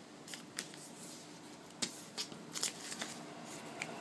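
Sheet of origami paper being folded by hand: a scatter of crisp paper crackles and snaps as it is bent and handled, the loudest a little under two seconds in, with several more close together just after.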